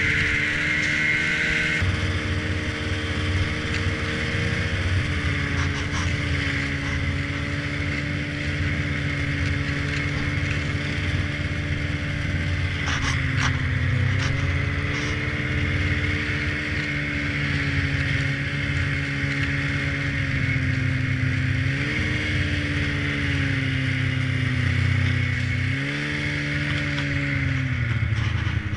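Snowmobile engine running at a steady cruise. Its pitch dips and climbs again a few times as the throttle eases and opens, then falls near the end as the sled slows.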